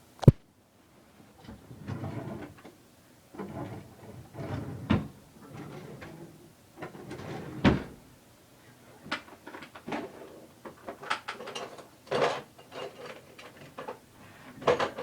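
Cardboard keyboard box being handled and opened: a sharp knock just after the start as something is set down, then irregular scraping, rustling and light knocks of cardboard and packaging.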